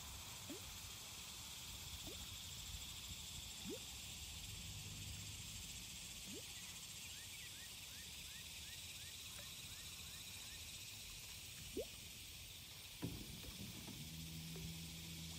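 Quiet outdoor ambience: a steady high hiss over a low wind rumble, with faint short rising calls scattered through. A single knock comes near the end, followed by a low steady hum.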